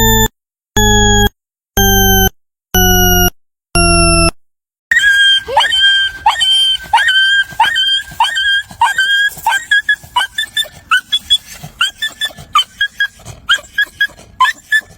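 A run of electronic beeps, about one a second, each a little lower in pitch than the last. About five seconds in, a dog starts whimpering and yipping in short high-pitched cries that come quicker toward the end.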